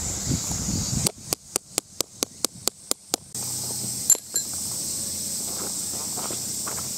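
A stone knocking a small tent peg into hard, stony ground: a quick even run of about ten sharp knocks, roughly four a second, which stops suddenly. A steady high hiss follows, with one loud click.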